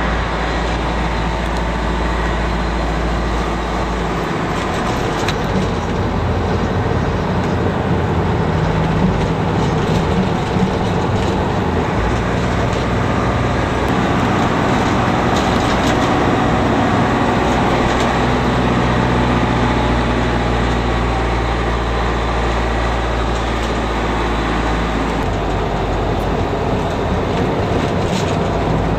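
Bus engine and road noise heard from inside the passenger cabin: a steady drone whose low hum shifts pitch a few times as the bus changes speed.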